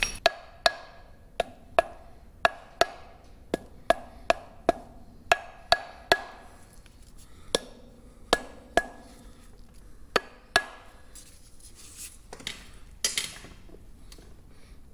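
Hammer tapping the outer seal plate of a Centurion tank gearbox home onto its flange: about twenty sharp, irregular taps, each with a brief metallic ring. The taps stop after about ten seconds, and a few softer knocks follow near the end.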